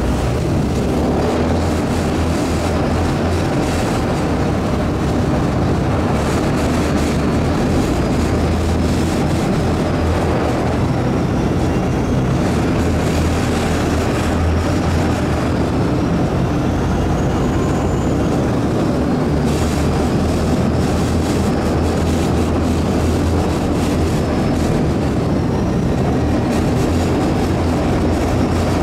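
A tender boat's engine running steadily with a low drone, under an even hiss.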